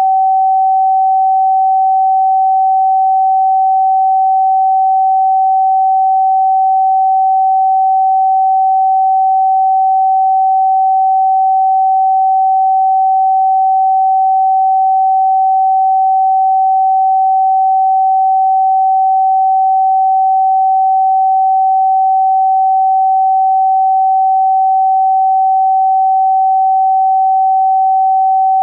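A steady pure sine tone at about 764 Hz, the note G on a scale tuned to A = 432 Hz, held unbroken at a constant level.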